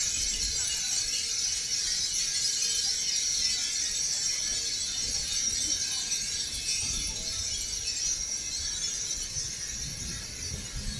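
A large mass of Japanese wind chimes (furin) tinkling together, a dense, continuous high jingle of many small chimes ringing at once, with a low rumble coming and going in the later part.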